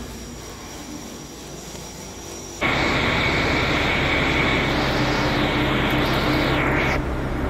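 Indoor room hum at first. Then, about two and a half seconds in, a steady loud whine over a low engine hum starts suddenly: a diesel railcar idling at the platform. It eases a little near the end.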